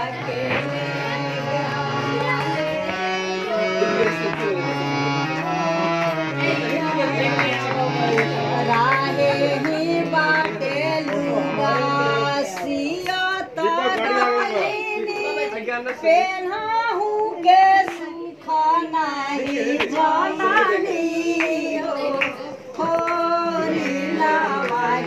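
Group of women singing a sohar, a folk song sung for a child's birth, to a harmonium. The harmonium's held low notes stop about halfway through, and the voices carry on.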